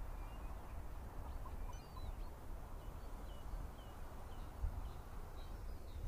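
Beach ambience: a steady low rumble of wind and surf, with faint short high bird calls scattered through it.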